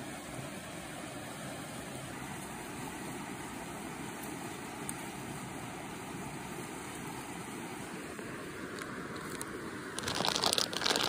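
Steady rushing of a nearby creek and waterfall. About ten seconds in, loud rustling and bumping of the camera being handled against fabric.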